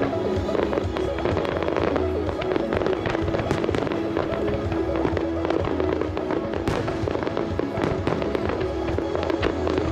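Fireworks display: many sharp bangs and crackles going off in quick succession over music.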